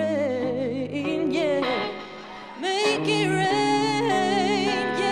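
A woman singing long held notes with wide vibrato, backed by a live band's held chords and bass notes. The voice drops back about two seconds in, then returns loud on high held notes.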